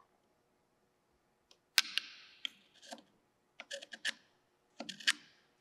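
Screwdriver tip scraping and picking packed grease and dirt out from between the metal cooling fins of a 7.5 hp induction motor's housing. It comes as about four short bursts of scratching and clicking, starting a little under two seconds in.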